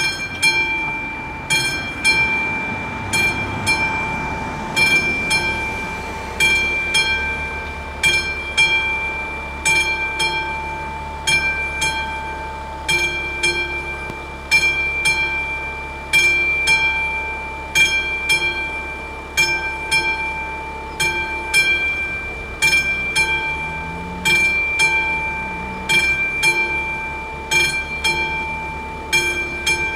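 Railway level-crossing warning bell striking over and over in an even rhythm, each strike ringing on, sounding while the crossing's red lights flash and the barriers are down to warn of an approaching train.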